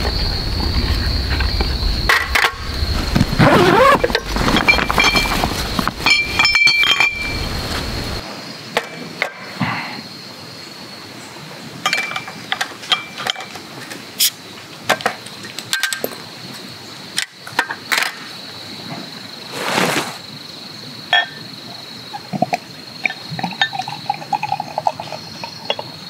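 Rustling as gear is pulled out of a backpack, then glass clinks as a glass beer bottle and a glass mug are handled. The bottle cap is opened and beer is poured into the glass mug near the end.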